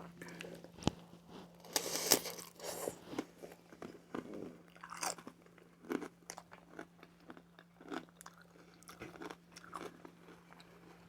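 A person chewing and biting aguachile verde close to the microphone, with crunching and irregular wet mouth clicks and smacks.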